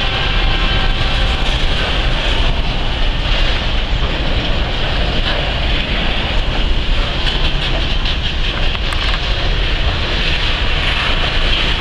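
Container freight train rolling past at close range, the steady loud rumble and rattle of its loaded flat wagons' wheels running on the rails.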